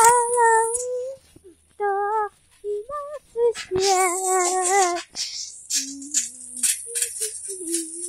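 A high voice singing or humming drawn-out notes in short phrases, with a slight wobble on the longer notes. In the second half, lower short notes come mixed with a run of sharp clicks and rattling.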